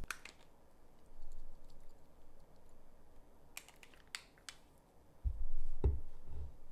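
Tableware sounds while eating: a few light clicks of chopsticks against dishes, then a louder dull knock about five seconds in.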